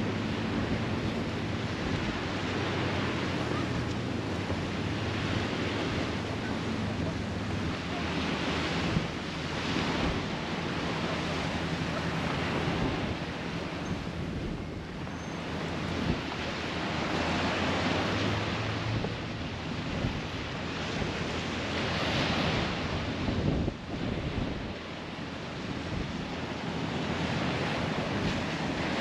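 Small waves breaking and washing up a sandy beach, the surf swelling and ebbing every few seconds, with wind buffeting the microphone.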